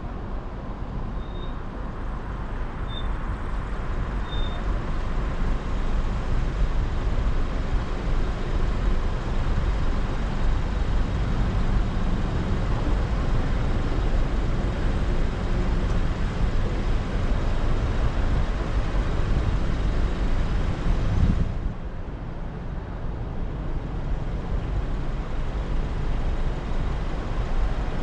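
Steady traffic noise around a car stopped in a queue of city traffic, with engine and road rumble. About three-quarters of the way through it drops suddenly in level.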